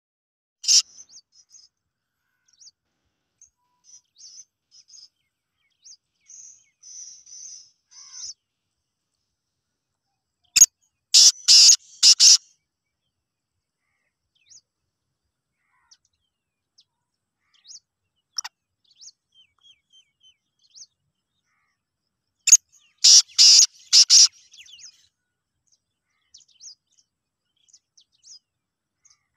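Black francolin calling twice, about twelve seconds apart. Each call is a quick run of about five loud notes lasting under two seconds.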